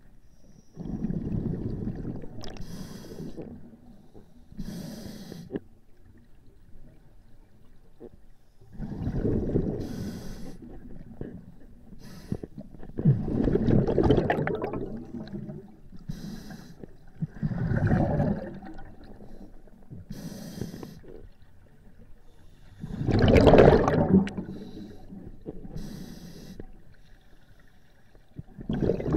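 Scuba diver breathing through a regulator underwater: a short hiss on each inhale, then a louder gurgling rush of exhaled bubbles, one breath every few seconds.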